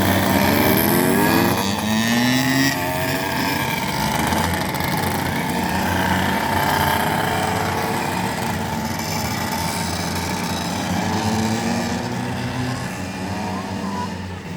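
Go-kart engines running, their pitch rising and falling as they speed up and ease off. The sound eases slightly near the end.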